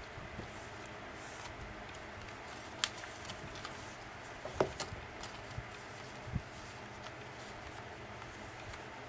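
Cardstock junk-journal pages and pockets being handled and turned over on a cutting mat: soft paper rustles and a few light knocks, three of them sharper, over a steady hiss.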